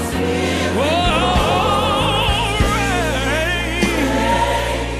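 Recorded gospel worship music: a voice sings long, wavering, vibrato-laden lines over steady sustained low chords.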